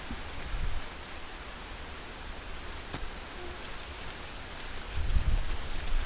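Outdoor wind: a steady rustling hiss, with gusts buffeting the microphone as a low rumble that picks up about five seconds in.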